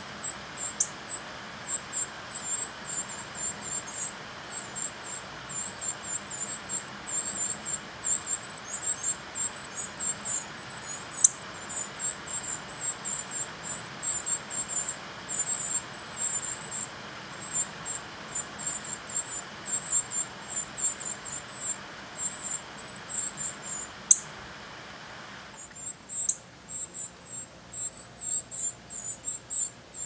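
Northern cardinal nestlings begging for food: rapid, very high-pitched thin peeps in quick clusters, with a short pause and a single sharp click about four-fifths of the way through.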